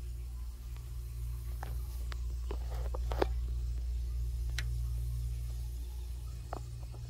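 Goodman air handler running with a steady low hum, with several short sharp clicks scattered through the middle.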